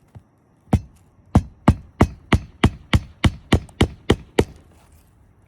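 Hammer driving a roofing nail through a composition shingle: a light tap, then about a dozen steady blows roughly three a second that stop once the nail is set.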